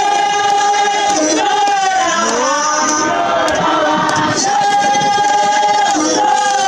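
Church congregation singing together, with long held notes and sliding changes of pitch between them.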